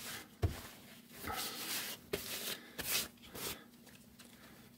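Blue shop towel rustling as it is unfolded and spread out by hand, in several short bursts that die down about three and a half seconds in.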